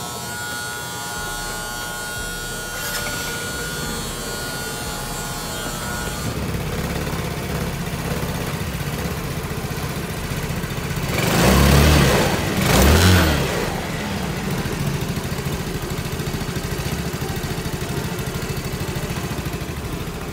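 Yamaha Cuxi 100 scooter's carbureted engine idling steadily, revved briefly twice in quick succession about halfway through, then settling back to idle.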